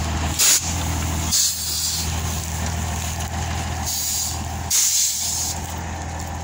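Loaded truck's diesel engine running steadily at low speed as it pulls away, with several short hisses of air from its brakes.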